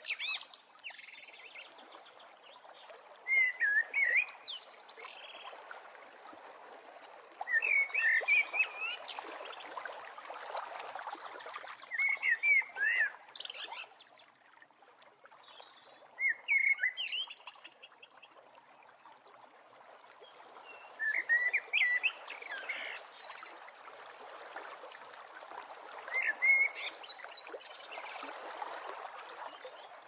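A songbird repeating a short, chirping phrase about every four to five seconds, over the steady rush of a mountain stream and waterfall.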